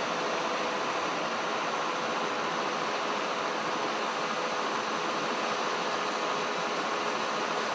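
Steady machinery noise: an even, unbroken drone with a faint steady hum running through it, with no starts, stops or changes in level.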